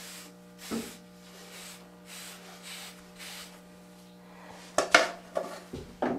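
Wave brush bristles swept over short, waved hair in repeated strokes, about two a second for the first three and a half seconds. Near the end come a few sharp knocks and handling noises.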